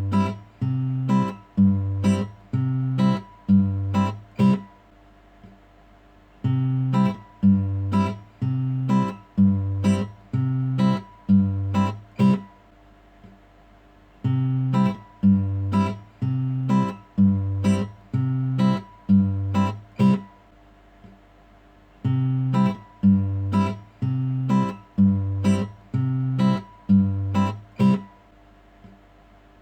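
Background music: a plucked acoustic guitar playing a repeating bouncy figure in short phrases, with brief pauses between phrases about every eight seconds.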